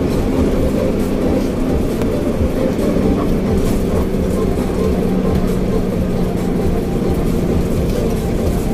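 Intercity bus driving steadily: the engine runs with an even drone under tyre and road rumble, heard from inside the front of the cabin.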